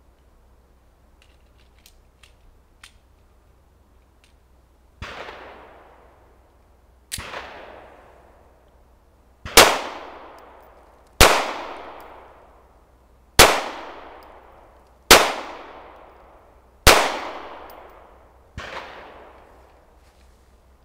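Semi-automatic pistol fired eight times in slow, aimed fire, a shot about every two seconds, each with a short echoing tail; a few faint clicks come before the first shot.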